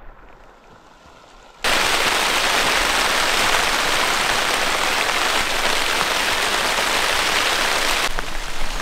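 Heavy rain falling on a woven plastic tarp roof: a loud, dense, steady hiss that cuts in abruptly about a second and a half in.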